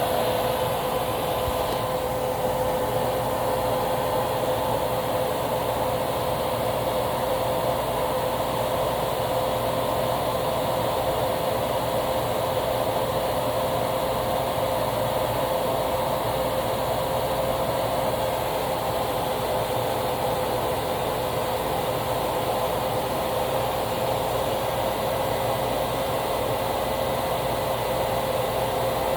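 Hoover WindTunnel Plus canister vacuum motor running steadily, pulling air through its hose: an even rush of air with a constant whine.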